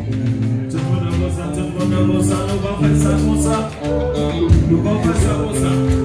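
Live band playing, with drum kit, congas, electric guitars and keyboard, and percussion keeping a steady beat under sustained notes.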